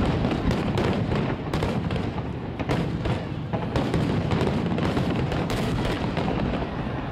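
Aerial fireworks shells going off in quick succession, a dense run of booms and sharp cracks several a second.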